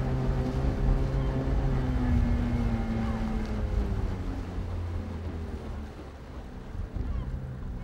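Small boat's motor running under way, a steady engine note with some wind noise; past the middle the note drops slightly and the sound grows quieter.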